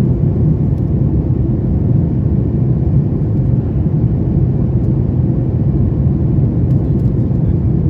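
Steady low rumble inside the cabin of a Boeing 737 MAX 8 climbing out after takeoff: its CFM LEAP-1B turbofan engines and the airflow over the fuselage.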